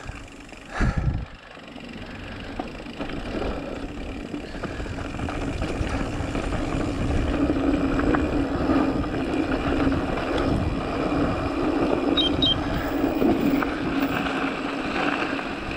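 Mountain bike rolling down a dirt trail: tyre rumble and wind rush that build over the first several seconds as speed picks up, then hold steady. A short thump comes about a second in.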